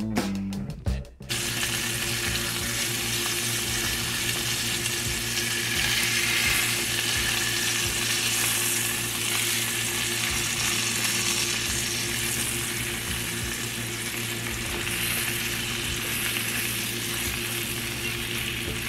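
Flour-dredged chicken breasts frying in vegetable oil in a cast-iron skillet: a steady sizzle that starts abruptly about a second in, over a low steady hum.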